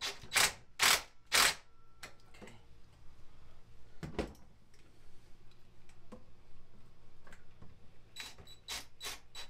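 Sharp mechanical clicks from hand-tool work while fastening a panel: three loud clicks about half a second apart near the start, a single dull knock about four seconds in, and a run of four quicker clicks near the end.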